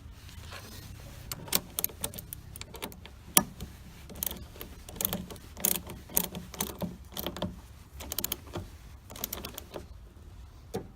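Battery cable clamps being refitted to the battery terminals and tightened with a hand tool: irregular metallic clicks and clinks, some in quick runs.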